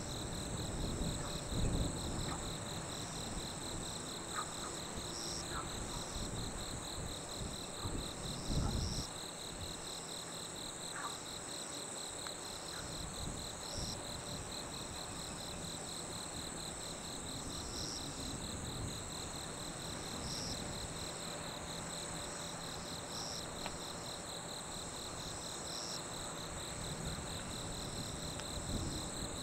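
Night insects chirping in a steady, fast-pulsing high trill that swells regularly, over a faint steady low hum. A few low rumbles come in the first nine seconds, louder about two seconds in and again around eight seconds.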